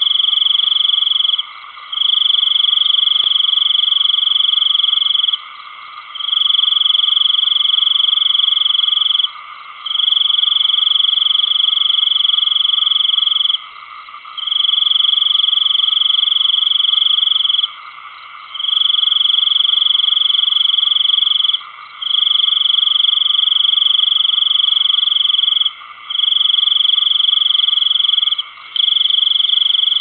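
Night chorus of calling animals, led by one loud, high, continuous trill that goes on in long bouts of about three to four seconds, each broken by a pause of about half a second, over a steady lower hum of other callers.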